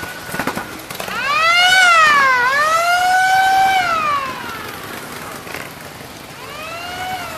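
A siren wailing: a single pitched tone rises and falls twice over about three seconds, then a shorter rise and fall comes near the end.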